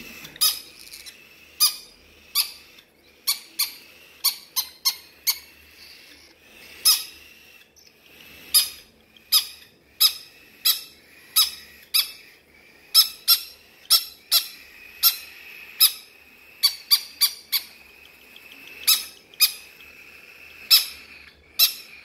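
Young pet parrots, a conure and a cockatiel chick, giving short, sharp squawks, irregularly one or two a second. These are begging calls at feeding time.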